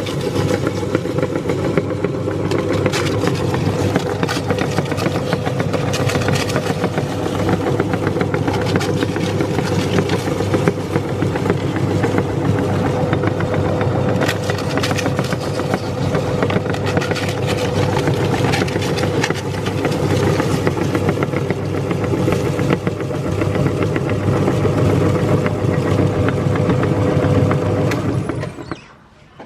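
Electric meat grinder motor running steadily while it crunches pani puri shells, with dense crackling throughout. The motor stops abruptly near the end.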